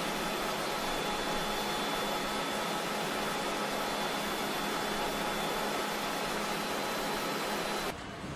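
Steady car-assembly-line factory noise: an even hiss with a low hum and a few faint high whines from machinery and ventilation. Near the end it drops suddenly to a quieter background.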